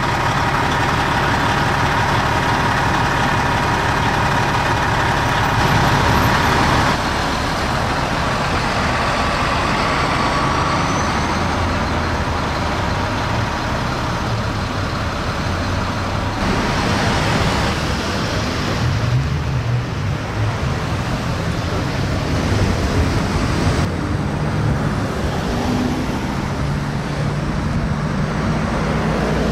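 Road traffic: cars passing close by over a steady engine rumble. A steady hum is heard for the first several seconds.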